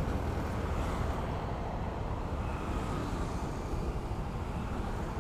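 Steady road traffic noise with a deep low rumble underneath. No single vehicle or horn stands out.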